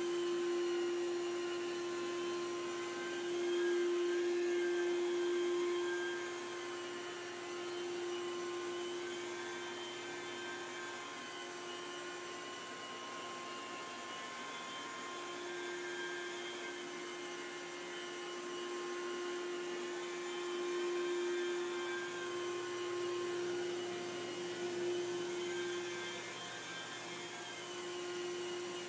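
Portable carpet extraction machine running with its motorized rotary cleaning head on the carpet: a steady vacuum drone with a strong hum. Faint higher tones rise and fall every few seconds.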